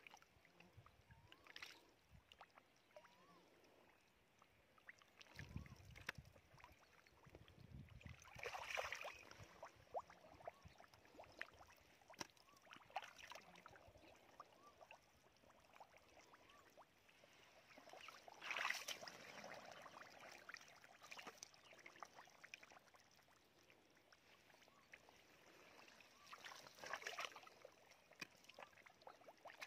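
Faint sloshing and splashing of hands and fish in shallow muddy water while catfish are caught by hand, with three louder splashes about nine, nineteen and twenty-seven seconds in.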